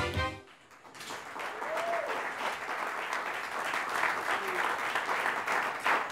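A stage-music cue cuts off just after the start. About a second in, a theatre audience begins applauding and keeps clapping steadily as the stage lights come up.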